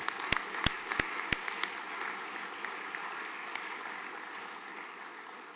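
Audience applauding, with a few loud single claps close by in the first second or so, then the applause slowly dies away.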